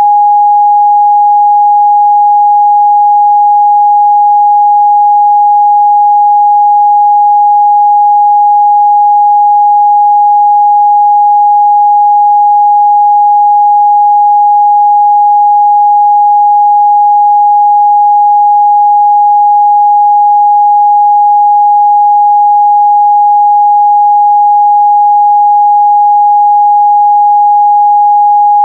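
Steady, loud 826 Hz sine-wave test tone, one pure unbroken pitch.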